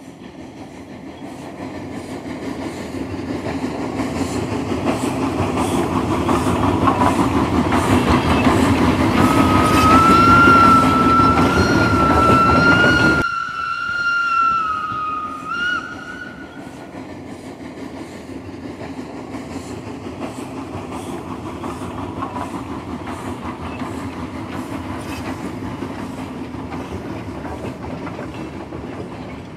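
Steam train running with a steady rhythmic clatter that grows louder over the first ten seconds. Its whistle sounds one long wavering note from about nine seconds in, the sound dropping off abruptly about thirteen seconds in, then gives a short toot a couple of seconds later. The clatter carries on steadily after that.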